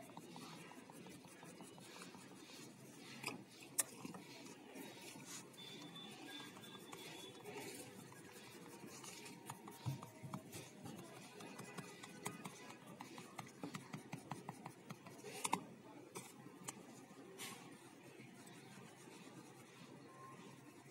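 Oil pastel crayons rubbing on paper in quick back-and-forth shading strokes: faint, scratchy scraping, broken by a few light taps of the crayon on the paper.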